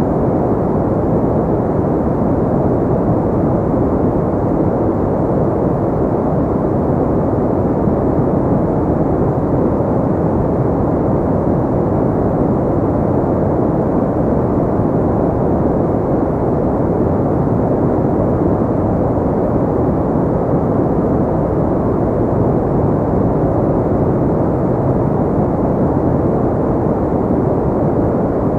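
Continuous ambient noise for sleep and relaxation: a steady, deep, muffled hiss with most of its weight in the low end, unchanging throughout.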